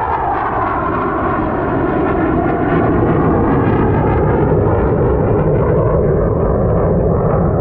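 A low-flying propeller airplane passing overhead. Its engine drone is loud and steady, and the pitch drops over the first few seconds as it goes by.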